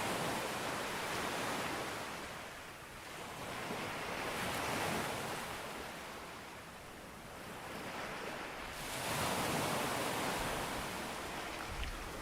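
Sea waves breaking and washing up a beach. The surf noise swells and ebbs, with the biggest surge about nine seconds in.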